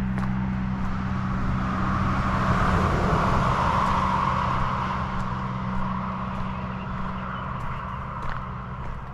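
A pickup truck driving past on the highway, its engine and tyre noise swelling to a peak about three to four seconds in and then fading away. A steady low hum runs underneath.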